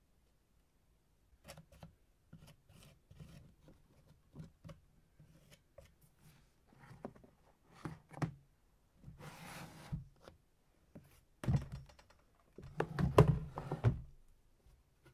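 Hands working with craft materials: scattered light clicks and rustles, a brief scraping rustle about nine seconds in, and a cluster of louder knocks and thunks near the end.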